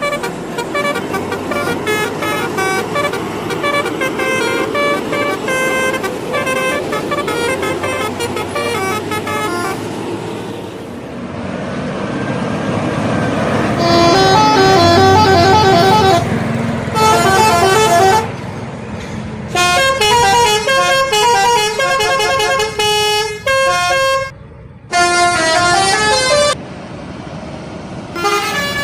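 Indonesian bus telolet horns, multi-tone air horns playing melodic runs of stepped notes over the bus engine. The first part is a rapid patter of short notes; from about halfway come louder, longer phrases with brief gaps between them.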